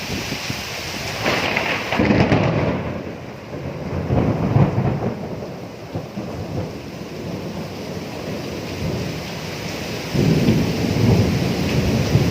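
Thunder rumbling in rolling swells over steady rain. One swell comes about a second in, another around four seconds, and a stronger, longer rumble builds from about ten seconds.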